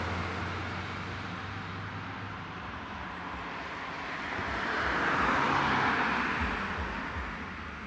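Road vehicle driving by without siren: a low engine hum fades over the first few seconds, then tyre and engine noise swells, peaks about five seconds in and dies away.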